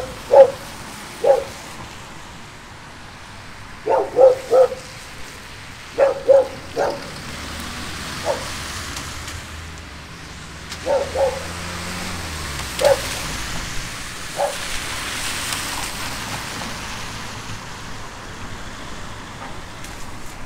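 A dog barking repeatedly, the barks coming singly or in quick runs of two or three through the first fifteen seconds, over a steady background hiss.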